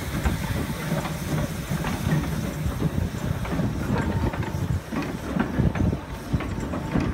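Small tank steam locomotive working slowly past with its goods wagons: a run of low exhaust beats and steam, mixed with the knocks and rattles of the wagons rolling over the track.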